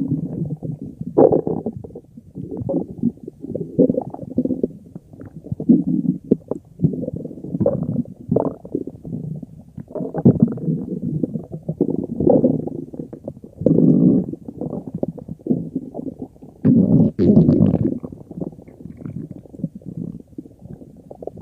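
A human stomach growling in a long run of irregular rumbles that swell and fade, the loudest about seventeen seconds in.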